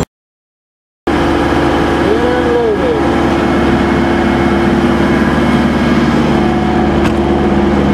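After about a second of silence, a semi truck's diesel engine running steadily at low speed, heard from inside the cab.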